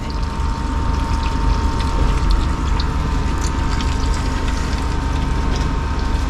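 Engine oil draining from a Nissan K13 March's oil pan in a thin, steady stream into a drain receptacle below. The oil is black and sludgy after 10,000 km without a change. A steady mechanical hum runs underneath.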